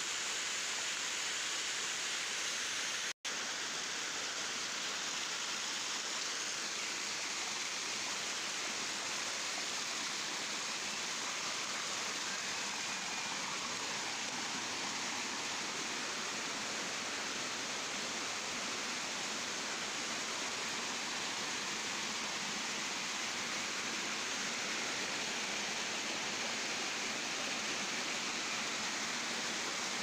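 Waterfall: water falling and rushing in a steady, even hiss, with a momentary cut to silence about three seconds in.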